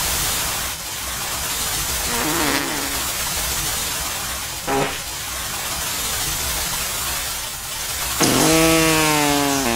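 A heavy cascade of water pouring down, a steady loud rushing, as a deluge douses a dumpster fire. Near the end a drawn-out pitched tone slides slightly downward over it.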